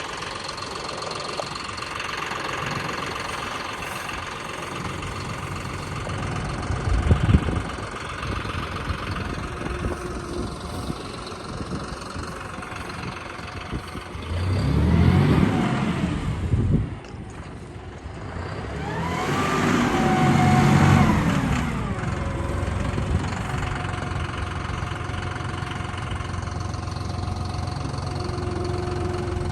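Farm tractor engine running steadily, revving up and back down twice about halfway through, as it would when lifting and moving hay bales. There is a brief knock about a quarter of the way in.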